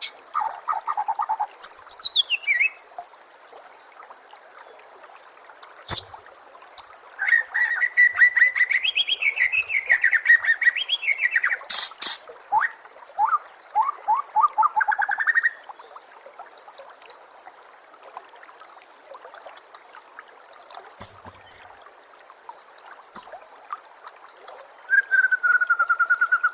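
White-rumped shama (murai batu) singing in separate phrases of rapid repeated notes, trills and rising and falling whistles, with a quiet pause of several seconds in the middle, over a steady faint hiss of trickling water.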